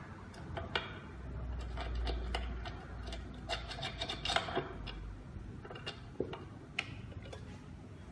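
Handling of a fingerprint door lock's metal and plastic panel as it is fitted onto a door: scattered clicks, taps and rubbing, thickest about three and a half to four and a half seconds in, with a low rumble around two seconds in.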